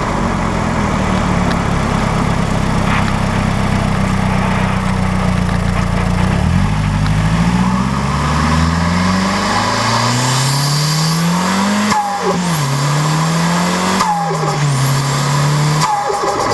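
Mazdaspeed 3's turbocharged 2.3-litre four-cylinder engine running steadily, then accelerating hard with its pitch climbing through the gears. With the blow-off valve blocked off, the boost has no vent on lift, so the turbo flutters briefly at each of the three gear changes near the end, along with a high turbo whistle.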